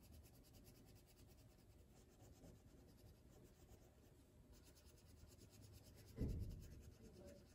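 Faint scratchy rubbing of a wax crayon coloring in on chart paper held against a whiteboard, with a soft low thump about six seconds in.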